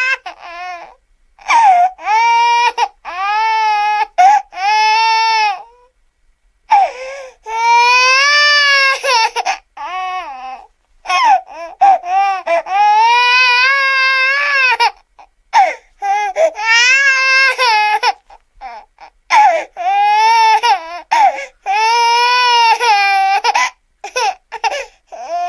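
A baby crying: high-pitched wailing cries, each about one to two seconds long, with short catches of breath between them.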